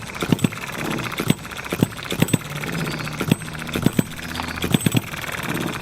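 A string of irregular light knocks and clicks from the small Ball Top Monitor model engine being handled on the bench, over a steady high buzz of cicadas.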